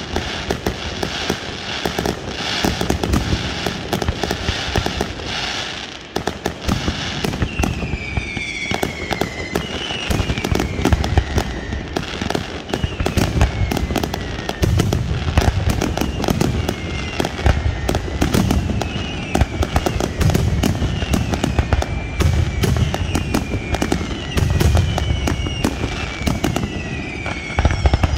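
Aerial fireworks display: dense crackling and popping of bursting shells and rising rockets, with deep booms. From about eight seconds in, repeated whistling fireworks add falling whistles over the cracks.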